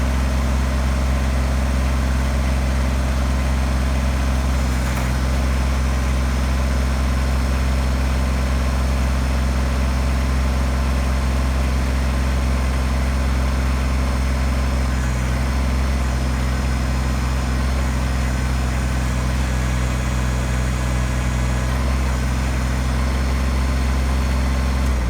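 Kubota BX25D compact tractor's three-cylinder diesel engine running at a steady speed.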